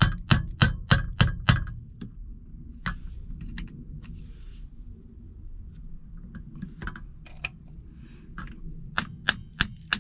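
Hand tools striking and working the metal seat-adjuster mechanism: a quick run of sharp metallic taps, about three a second, then a few scattered clicks, then another quick run of taps near the end.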